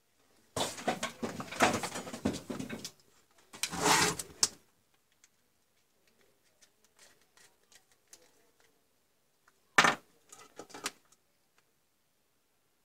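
Handling noise from the opened Dremel 3000 rotary tool being worked on with a small screwdriver: two spells of rustling and scraping against its plastic housing in the first few seconds, then one sharp click near ten seconds and a few lighter clicks.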